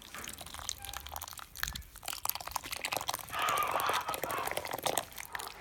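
Wet squelching and small clicks of tomato puree being poured and stirred into boiled potato and carrot pieces in a steel bowl. A louder rasping noise runs from about three seconds in until near the end.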